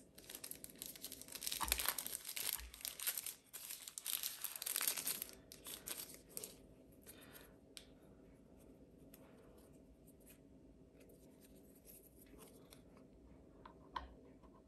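Packaging rustling and tearing as the drone's spare propellers are unpacked: loud crinkling for the first five or six seconds, then softer handling with scattered light clicks.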